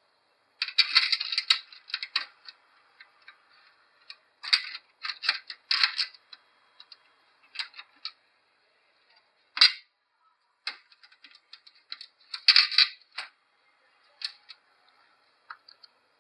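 Small metal screws and washers clicking and rattling against a steel PC case as fan screws are fitted with a washer between each screw and the case. The clatter comes in irregular clusters of clicks, the loudest about a second in and again around twelve seconds.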